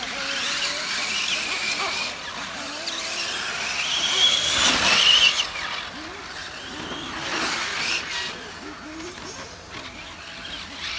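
Brushless electric motor of a 1/8-scale Serpent SRX8 GT RC car running on 6S, its whine rising and falling in pitch as the car accelerates and slows around the track. It is loudest as the car passes close by about five seconds in.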